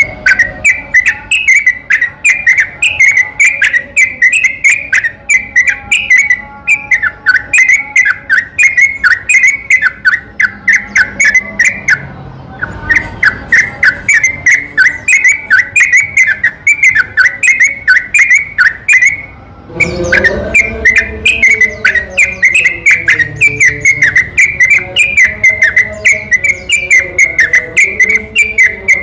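Yellow-vented bulbul (trucukan) song in a long, fast string of loud whistled notes, several a second, broken by two short pauses. A lure recording of a bird in full, continuous song, used to stir other bulbuls into answering.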